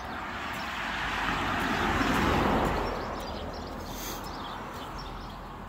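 A car driving past on the road, its tyre and engine noise swelling to loudest a little over two seconds in and then fading away.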